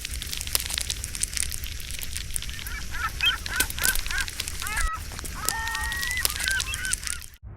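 Geese honking: a quick run of short calls starting a couple of seconds in, then one longer drawn-out call and a few more short ones. Under them runs a steady crackling and clicking.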